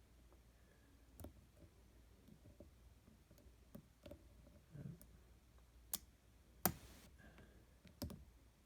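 Scattered faint metal clicks and ticks of lock picks working the pins and shackle of a Slaymaker No. 1600 push-key padlock, with a sharper click followed by a brief scrape about six and a half seconds in.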